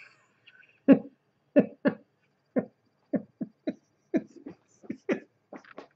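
A man's stifled laughter: a string of about a dozen short, breathy chuckles, starting about a second in.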